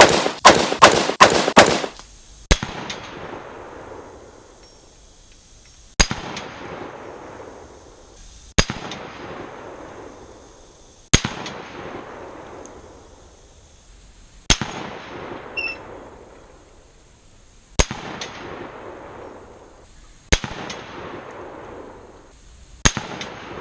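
PSA PA10 .308 AR-10 pistol firing: a quick string of about seven shots in the first two seconds, then eight single shots a few seconds apart. Each shot is followed by a long echo rolling away, and the steel target clangs as it is hit.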